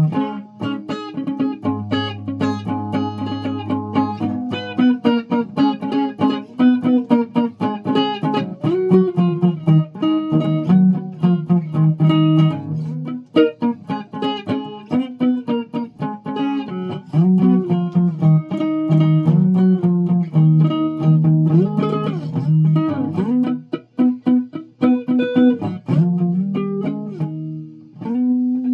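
Guitar being played: a long run of single plucked notes, some sliding in pitch, with a low note held for a couple of seconds near the start.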